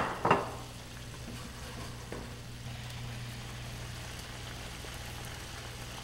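White wine and mushroom pan sauce simmering in a skillet on a gas burner: a steady, faint bubbling hiss over a low steady hum, after a brief louder sound right at the start.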